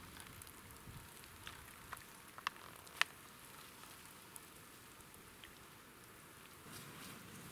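Campfire embers hissing and crackling as water is poured over them from a plastic bottle to put the fire out, with scattered pops and two sharp cracks about two and a half and three seconds in.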